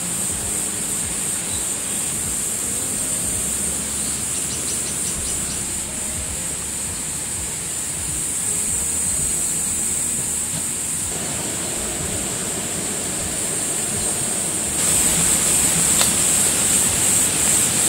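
A steady, high-pitched insect chorus over the low rumble of wind on the microphone. About fifteen seconds in, louder rustling and handling noise joins.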